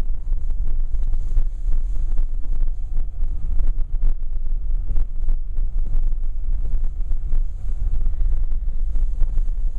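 Car driving, heard from inside the cabin: a steady low rumble with many small knocks and rattles throughout.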